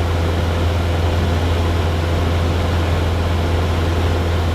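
Cessna 172 Skyhawk's piston engine and propeller droning steadily in level cruise, a constant low hum under a wash of engine and air noise.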